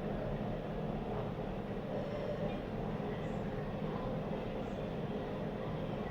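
Steady low rumbling background noise with a faint hum and no distinct events.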